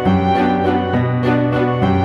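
Background music with sustained tones over a steady beat, about four beats a second.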